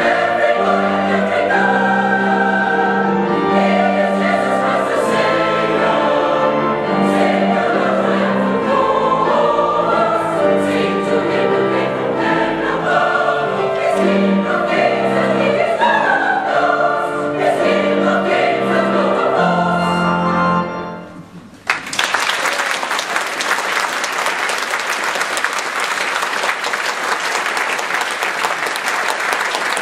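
A choir singing a carol in full voice; about two-thirds of the way through, the final chord dies away, and after a moment's hush an audience breaks into steady applause.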